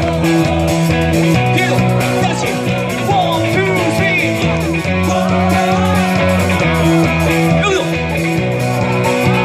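Live rock band playing through amplifiers: electric guitars over a steady bass line and a drum kit keeping a regular beat.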